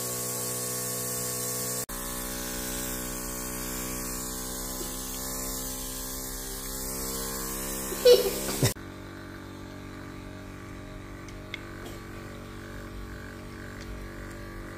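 Cordless nano alcohol spray gun running, a steady motor hum made of many even tones with a hiss of mist over it. About eight seconds in there are a few loud handling knocks, after which the sound drops to a quieter steady hum.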